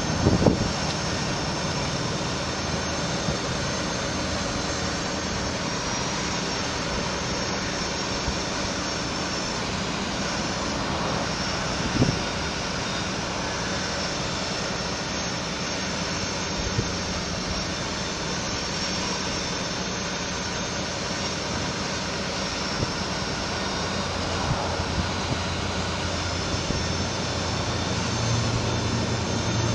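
Steady engine and hydraulic drone of a bucket truck running while its Altec AT37G aerial boom moves. There is a single knock about twelve seconds in, and a lower hum grows stronger near the end.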